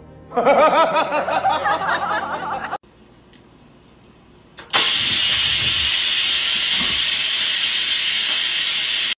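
A cat meows in a run of wavering calls for about two and a half seconds. After a short lull, an electric pressure rice cooker vents steam with a loud steady hiss, starting about halfway through and running for several seconds.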